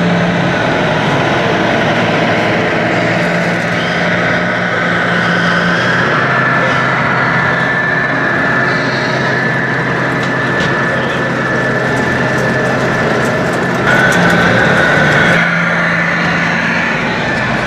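Large radio-controlled 1:4 scale Peterbilt model trucks running, giving a steady engine-like hum that changes pitch twice, over the constant din of a busy hall. The hum gets a little louder near the end.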